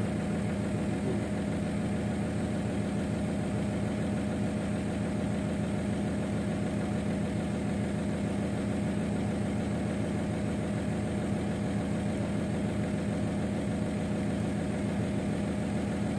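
Excavator diesel engine idling steadily, heard from inside the cab, with an even low hum and no revving.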